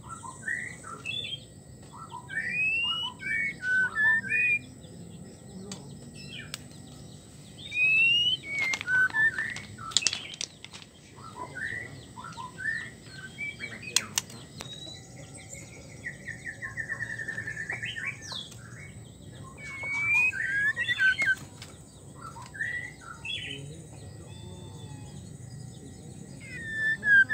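White-rumped shama calling in bursts of short, sharp whistled chirps, a few notes at a time, with a quick rattling trill about two-thirds of the way through. The uploader presents it as the 'wik wik wik' call of a female in breeding condition calling to a male.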